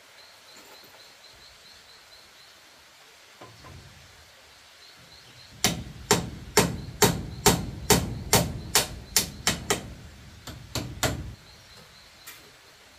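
Hammer blows on bamboo: a steady run of about a dozen sharp strikes, roughly two a second, then a short pause and three more.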